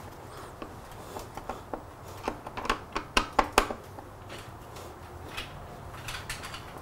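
Irregular light clicks and clatter of hand tools and small screws against the motorcycle's plastic airbox as its screws are fastened. A quick run of sharper clicks comes a little past the middle.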